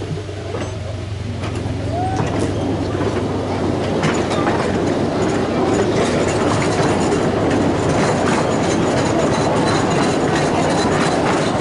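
Miniature railway train running along its track, the rattle of wheels on rails growing louder over the first few seconds as it gathers speed, then holding steady.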